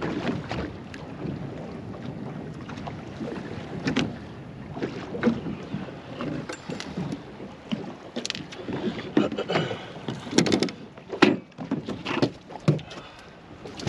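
Water slapping against a small boat's hull with wind on the microphone, under irregular knocks and clatter that come thicker and louder in the second half.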